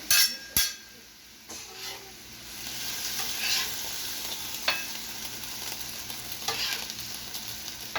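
Food sizzling on a steel flat-top griddle, with a utensil scraping and knocking on the steel as whole bell peppers are rolled around to brown. Two sharp knocks near the start; the sizzle grows louder a couple of seconds in.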